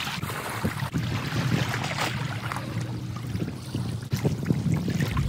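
Sea washing against rocks, with wind buffeting the microphone as a low rumble.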